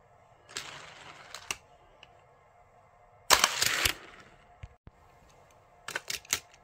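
Plastic clicks and rattling from a Hot Wheels track launcher and die-cast toy cars. The loudest part is a brief clatter about three seconds in, as a car is fired from the launcher and runs down the plastic track. Near the end comes a quick run of sharp clicks as the next car is set into the launcher.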